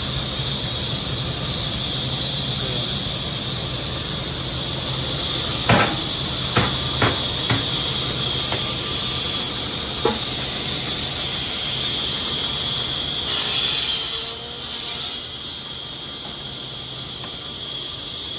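Bamboo-stick cutting machine running with a steady high whine and a low hum. A few sharp knocks come about six to seven seconds in. Then, around thirteen to fifteen seconds in, there are two harsh bursts of cutting as the blade goes through a bundle of thin bamboo sticks.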